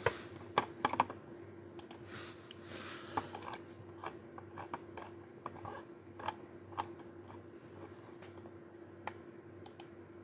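Irregular light clicks and taps, a few louder ones in the first second, over a steady low electrical hum.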